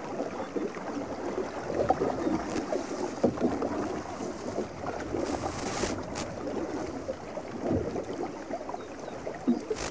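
Water splashing and lapping around a small boat being paddled along a canal, with irregular paddle strokes and light knocks.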